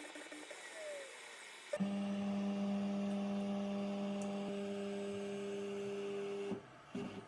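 Stepper motors of an FLSun V400 delta 3D printer whining at one steady pitch as they drive the printhead during bed mesh calibration. The whine starts about two seconds in and cuts off shortly before the end.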